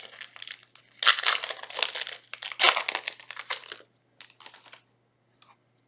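Foil booster-pack wrapper crinkling and tearing as a trading-card pack is ripped open, in dense bursts for about three seconds, then a few light clicks and taps as the cards are handled.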